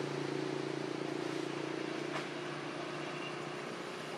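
A steady engine drone, easing off slightly after about two seconds, with a single sharp click partway through.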